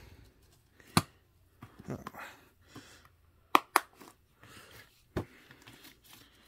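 A plastic 4K Blu-ray case is handled and snapped shut: a sharp click about a second in, then light rustling of paper and cardboard. Two quick snaps come near the middle as the case closes, and another click follows about five seconds in.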